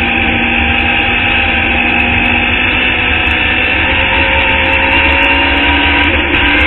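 Open-wheel Formula Indy race car's engine running hard under way, heard from the cockpit, its pitch dipping slightly early on and then holding fairly steady through a long corner.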